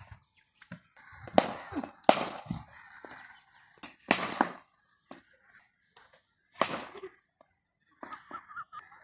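Cricket ball being thrown down with a sidearm ball thrower and struck by a bat in practice nets: several sharp cracks a second or more apart, with softer knocks between them.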